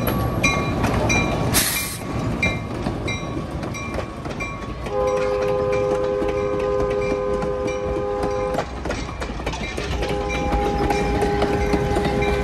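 A passing heritage passenger train: the coaches' wheels rumble on the rails while the train's horn sounds two long chord blasts, the first about five seconds in and the second near the end. A short hiss comes about two seconds in, and a light ringing tick repeats about twice a second.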